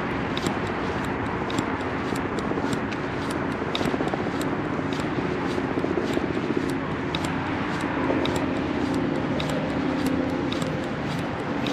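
City street ambience: road traffic running past with a steady hum, and light, sharp footsteps repeating about twice a second at a walking pace.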